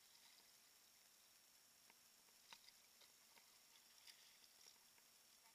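Near silence, with a few faint, sharp ticks scattered through it.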